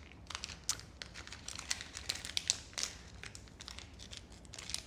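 Blind-box packaging crinkled and torn open by hand: a steady run of irregular crackles.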